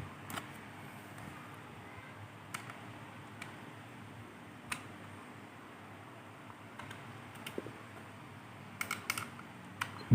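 Scattered small clicks and taps: a small screwdriver and a little metal bracket being handled while the tiny screws holding a laptop DVD drive's mounting bracket are taken out. A faint steady hum lies underneath, and the clicks come closer together near the end.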